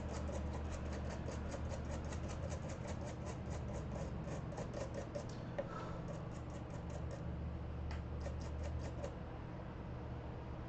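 Rapid, evenly spaced scratching ticks, about six a second, in a long run followed by two shorter ones, over a steady low hum.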